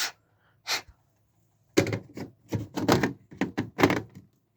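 Two short puffs of breath blown into an Apollo smoke detector to clear the test smoke so it won't reactivate. Then a quick run of plastic clicks and knocks as the detector head is handled and taken out of its base.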